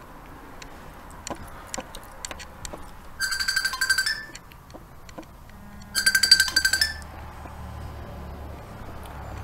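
An electronic alarm trilling in two bursts about a second long, each a steady rapid pulsing tone that steps up slightly just before it cuts off. Small clicks and crunches sound between them.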